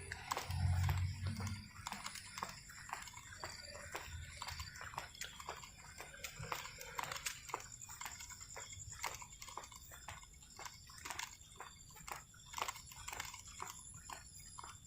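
Footsteps at a walking pace, about two a second, with a faint steady high tone behind them.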